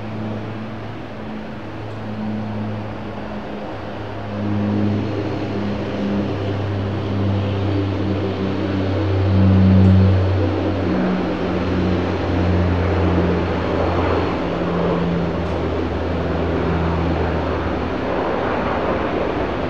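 Aircraft engines running: a low steady hum under a rushing noise that grows louder about halfway through and again later on.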